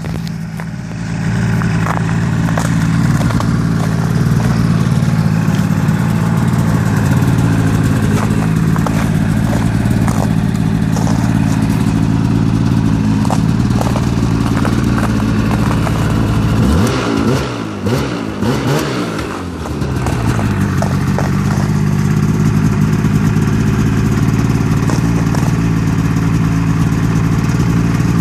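2001 Polaris Edge 600 snowmobile's two-stroke twin engine running steadily on its first start of the season after spring storage. About two-thirds of the way through, the engine note wavers up and down and dips for a few seconds, then settles back to a steady run.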